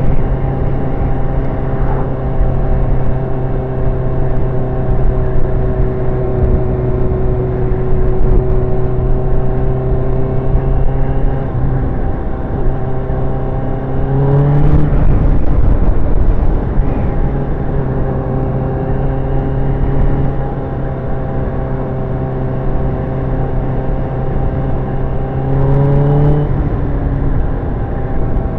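Sport motorcycle with a new exhaust running at road speed, with wind rush on the microphone. The engine note holds steady, then climbs sharply and breaks off twice, about halfway through and near the end.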